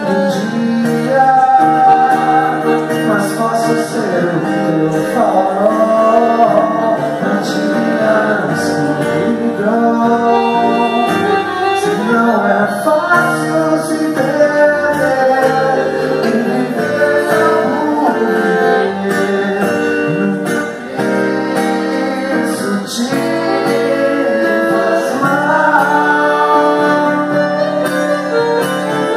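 Acoustic guitar and piano accordion playing a song together, with a man singing over them.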